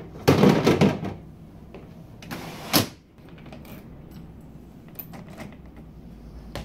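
Plastic buckets knocking and rattling as they are pushed into place in the hood of a Rubbermaid housekeeping cart, then the hood's plastic roller door sliding shut and ending in a sharp knock about three seconds in. A few light clicks follow.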